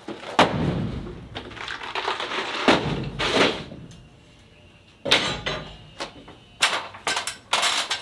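Wooden boards knocking, thudding and scraping as shelf decking is put up: a string of sharp knocks, loudest about half a second in and near three seconds, with a short lull around four seconds before more knocks.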